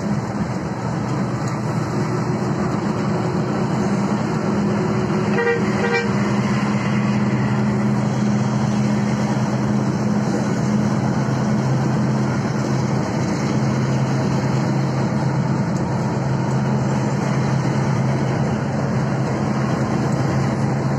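Steady engine and road drone inside a long-distance coach travelling at highway speed, with a vehicle horn sounding for about a second around five seconds in.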